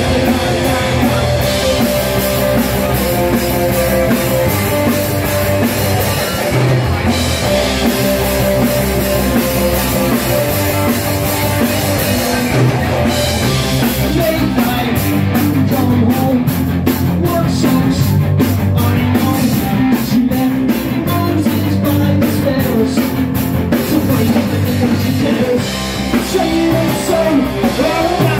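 Live rock band playing: electric guitars and a drum kit with a singer, loud through the PA.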